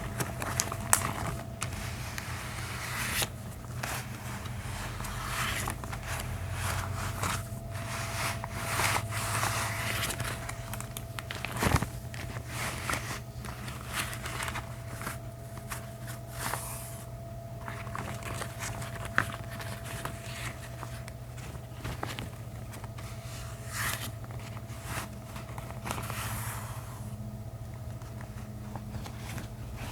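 Gloved hands rubbing, crinkling and scraping close to the microphone, with many irregular sharp clicks and snaps, over a faint steady hum.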